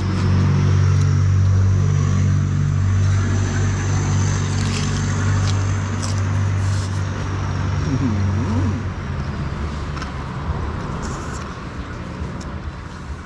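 A motor vehicle's engine running with a steady low hum that fades away about nine seconds in.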